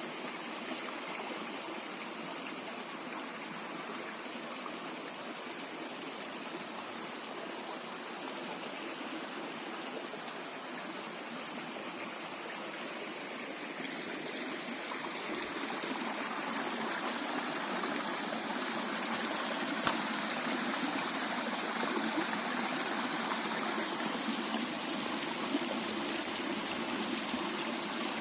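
Jungle stream of clear water flowing steadily, growing a little louder about halfway through, with one brief sharp click near two-thirds of the way in.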